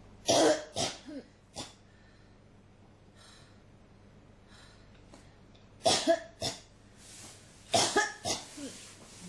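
A person coughing in short fits: a cluster of three or four coughs near the start, another cluster about six seconds in, and more near the end, with breaths drawn in between.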